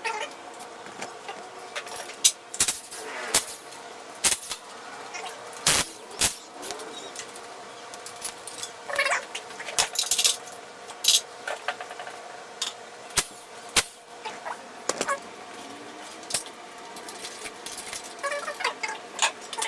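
Metal clinks and knocks of hand tools and engine parts being handled during a K20 engine teardown, sharp and at irregular intervals, over a faint steady hum.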